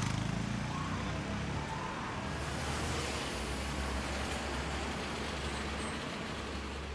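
Steady city street traffic noise, a rumble of passing cars.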